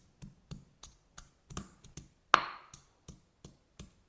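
A pestle pounding a small piece of fresh ginger to crush it roughly: sharp knocks at about three a second, a couple of them louder with a brief ring.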